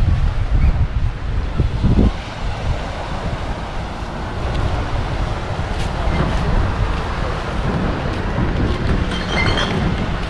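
Wind buffeting the microphone, a low rumble that gusts hardest in the first two seconds, over a steady hiss of surf.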